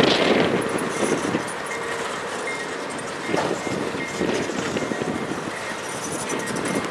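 Freight cars of a passing train rolling by at close range: steel wheels running on the rails in a steady rumble, with louder clatter as wheel trucks pass near the start and about three seconds in.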